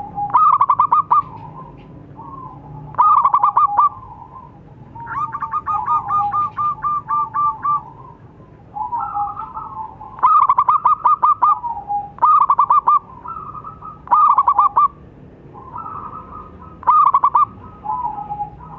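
Zebra dove (perkutut) cooing. It gives about seven phrases of quick staccato notes, one of them much longer, a little over two seconds, and softer, lower cooing notes fill the gaps between them.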